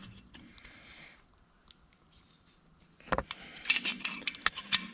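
Metal clicks and clinks from a hand brake-line flaring tool being worked with a wrench on its feed screw: a knock about three seconds in, then a quick run of sharp clicks near the end.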